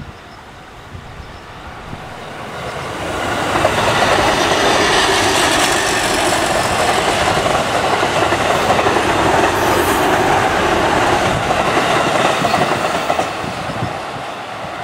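E531-series electric train passing, its running sound carrying an abnormal noise. It swells over about two seconds, stays loud with a steady tone-like ringing for about nine seconds, then fades.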